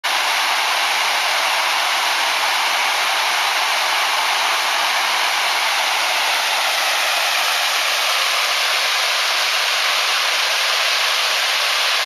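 Small waterfall spilling over a rock ledge into a pool: a loud, steady rushing hiss with little low end.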